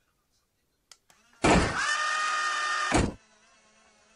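Whir of the remote-control BMW i8 model's doors closing: a steady motor sound about a second and a half long, starting and ending with a thunk.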